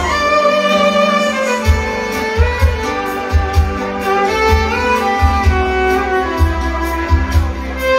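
Live band playing an instrumental passage: a violin melody over a bass and drum beat.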